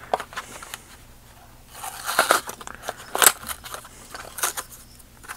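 Plastic packaging being worked open by hand to free a diecast toy car: crinkling and crackling with sharp clicks. The busiest stretch is about two seconds in, and the loudest crack comes about three seconds in.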